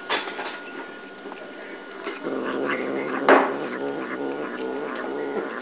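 Domestic cat growling, a low, steady growl that sets in about two seconds in and holds. Near the middle there is one sharp click.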